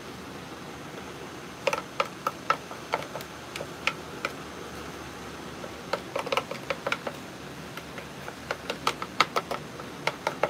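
A spoon clinking and scraping against a metal container while scooping a wet mixture: a run of irregular sharp clicks starting a couple of seconds in, pausing briefly, then resuming more densely.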